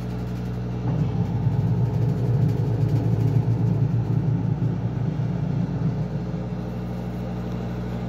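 Haceb top-loading washing machine running its spin cycle: a steady motor hum that grows louder about a second in and eases back a little near the end.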